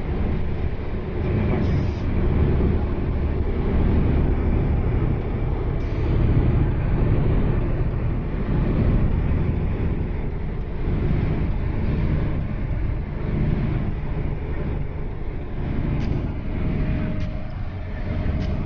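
Steady low rumble and road noise of a moving road vehicle, with a few faint ticks near the end.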